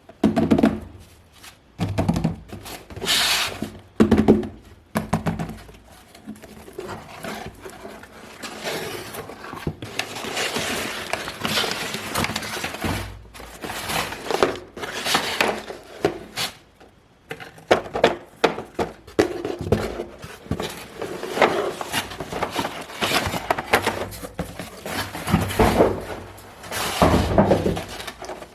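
Toy packaging being handled and opened: irregular thumps and knocks of cardboard and plastic, with stretches of rustling and crinkling.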